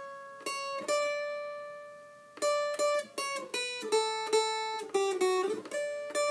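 Mountain dulcimer picked one note at a time, picking out a melody by ear and stepping mostly downward in pitch; one note is left ringing for about a second and a half before quicker notes follow.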